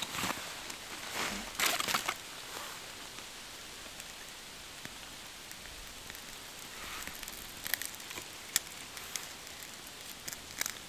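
Small fire of birch bark and split kindling just catching, crackling with scattered sharp pops over the second half. In the first two seconds, a few brief scraping rustles from the bark and tinder being handled.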